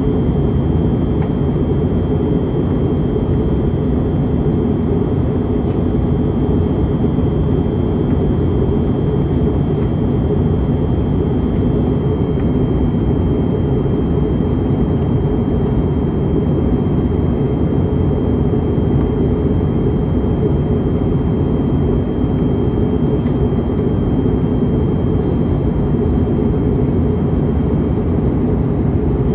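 Cabin noise inside an Airbus A321neo in flight: the steady, low rumble of the jet engines and airflow, with a faint, steady high whine above it.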